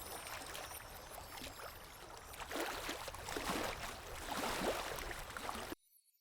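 Faint lake water lapping and gurgling, with small splashes that grow a little louder after a couple of seconds, then cut off abruptly near the end.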